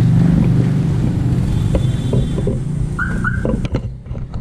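A vehicle engine running with a steady low hum. About three seconds in come two short high beeps, and then the engine sound falls away.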